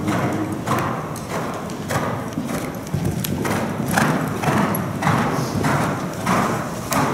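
Horse cantering on sand footing: a steady rhythm of hoofbeats, roughly three strides every two seconds, with a heavier thud about four seconds in as it lands over a jump.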